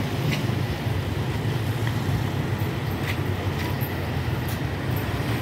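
Hyundai tour coach's diesel engine idling steadily as a low, even hum.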